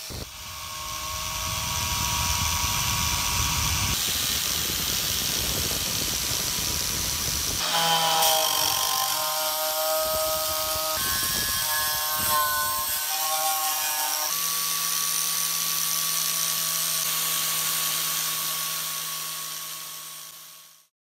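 Angle grinder with a wire cup brush spinning against rusty iron, scrubbing off rust from antique scale parts: a steady whine over a scratchy hiss. Its pitch shifts twice along the way, and it fades out near the end.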